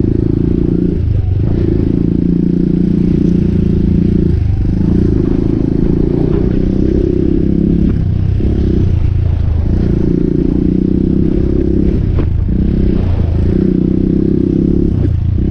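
Suzuki DR200's single-cylinder four-stroke engine running while riding along a trail, its note dipping briefly about half a dozen times as the revs drop and pick up again.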